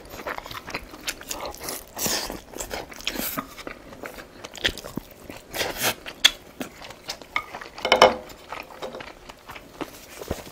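A person eating close to the microphone: crunchy bites and chewing of green onion kimchi, with wet mouth clicks and smacks. The loudest burst comes about eight seconds in.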